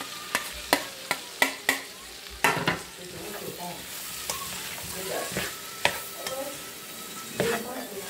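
A spatula stirring and scraping freshly added vegetables through browned ground pork in a hot skillet, the food sizzling as it fries. Sharp taps and knocks come in quick succession for the first three seconds, then the scraping and sizzle go on more steadily.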